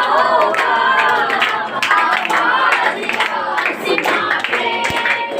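A group of worshippers clapping their hands in a steady run of claps, with many voices singing and calling out over it.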